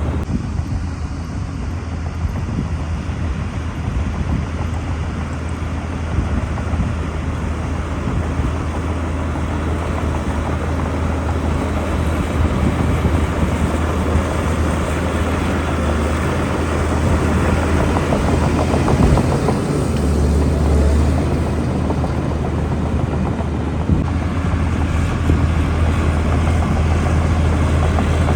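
Shantui DH17-C2 bulldozer's diesel engine running steadily with a deep, continuous drone, swelling briefly about 20 seconds in.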